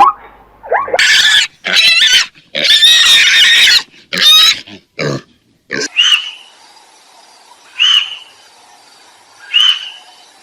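Animal calls: a run of loud, harsh squealing cries in the first few seconds, then three short high calls about two seconds apart.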